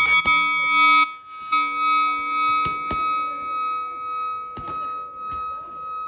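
Background music of long held chords, with about four sharp smacks of kicks and punches landing on Muay Thai pads: one near the start, two in quick succession midway, and one later.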